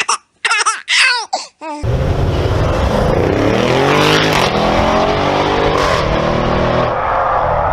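A performance car engine at high revs cuts in abruptly about two seconds in and runs hard. Its pitch sweeps up and back down over several seconds. A few short voices are heard before it starts.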